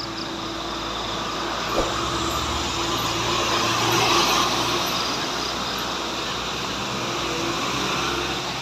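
Heavy vehicle running steadily, a rushing mechanical noise with a steady whine that swells around the middle, and a brief knock about two seconds in.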